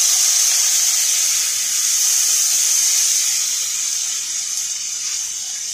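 Lemon juice sizzling in the hot oil and fried tempering in a kadai: a loud, steady, high hiss that eases off after about four seconds.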